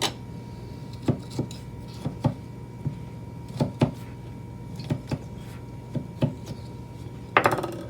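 Light scattered taps and clicks of a knife and a cut lemon being handled while the lemon's centre is pushed out, with a short scraping rattle near the end; a faint steady hum underneath.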